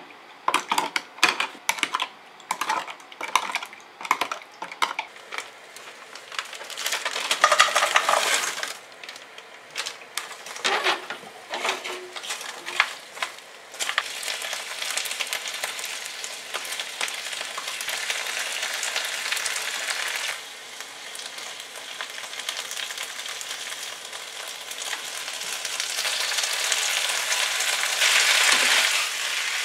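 A spoon clinking sharply against a plastic measuring cup as a sauce is stirred, several quick clicks in the first few seconds. From about halfway, vegetables (onion, bell pepper, carrot) sizzle steadily in a frying pan as a wooden spatula stirs them; the sizzle swells near the end when fried chicken pieces are in the pan.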